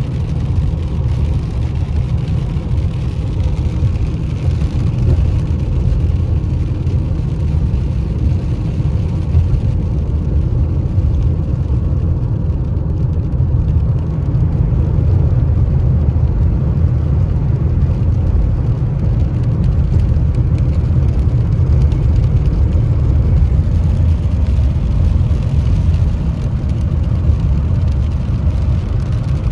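Steady low rumble of a car being driven, its engine and tyre noise heard from inside the cabin.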